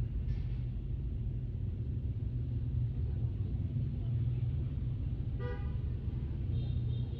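Steady low outdoor rumble, with one short horn-like toot about five and a half seconds in and faint high chirps near the end.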